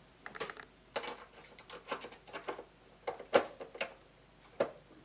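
Irregular light clicks and taps of a screwdriver working the Commodore 64's plastic case screws while the case halves are realigned, with one louder click a little past three seconds in.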